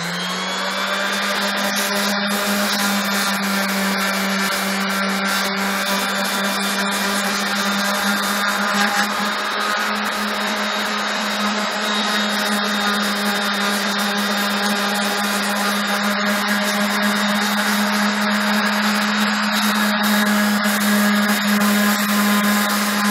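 Corded electric random orbital sander switched on and running at a steady pitch, its pad sanding hardened fiberglass on a steel mini-bike frame's steering neck.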